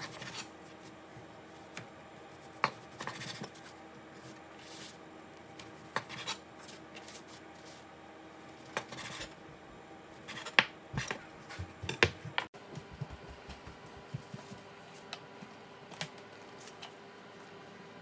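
Small hard objects being handled: scattered light clicks, taps and scrapes, with a cluster of louder knocks a little past the middle, over a faint steady hum.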